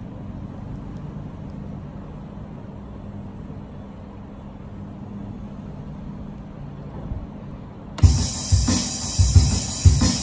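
A low steady rumble for about eight seconds, then a band-style keyboard accompaniment with a drum beat starts abruptly and loudly.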